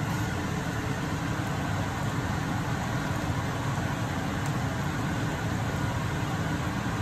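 Steady rumbling noise with a hiss over it, even in loudness throughout.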